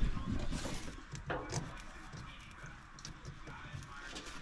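Handling noise of wiring work inside a furnace blower cabinet: a dull bump right at the start, then small clicks and rustles as a gloved hand feeds wires around the sheet-metal blower housing.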